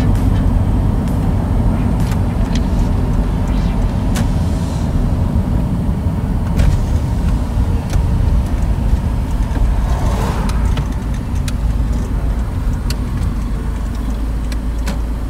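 Steady road and engine rumble inside a moving car, with a few light clicks or knocks scattered through it.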